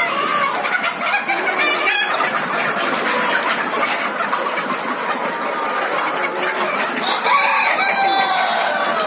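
A flock of hens clucking and calling continuously, many birds at once, with a few longer drawn-out calls near the end.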